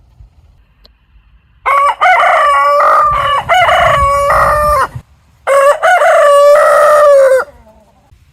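Rooster crowing twice: a long crow starting about one and a half seconds in, then a second, shorter crow half a second after it ends.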